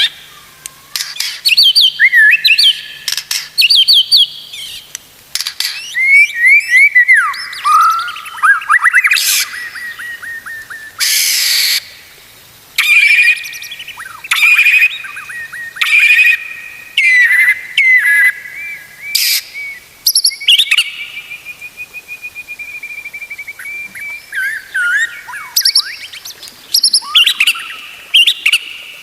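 White-rumped shama (murai batu) singing a loud, varied song: rapid whistled phrases and sweeps, harsh rasping notes, and a long even trill about two-thirds of the way through.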